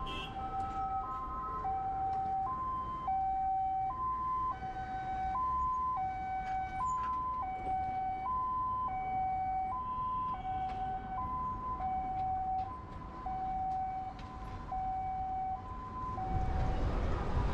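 Emergency vehicle's two-tone hi-lo siren, switching back and forth between a higher and a lower note about every 0.7 seconds at a steady pitch, stopping shortly before the end.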